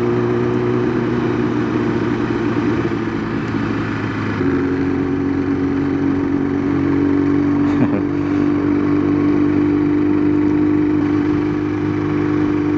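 Kawasaki ZX-10R inline-four engine running at a steady cruise under wind noise, heard from the rider's seat; about four seconds in its note steps down in pitch and then holds steady.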